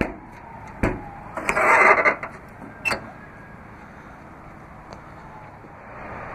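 Utility-bed side compartment door being shut and latched: a few sharp metal clicks from the latch and handle, and a loud rattling clatter about a second and a half in. After that only a steady low outdoor background.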